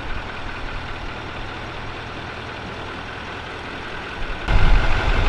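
Diesel truck engine running at idle while towing a shed on skids, a steady low hum. About four and a half seconds in, a louder, rougher rumble comes in.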